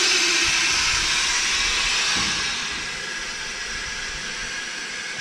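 Air-ride suspension valve hissing steadily as compressed air flows through it to move the front of a 1967 Chevrolet C10. The hiss eases a little about halfway through and cuts off suddenly when the button is released.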